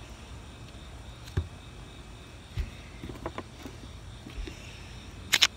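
Handling noise: a few soft knocks and small clicks, then two sharp clicks near the end, over a faint low background hum.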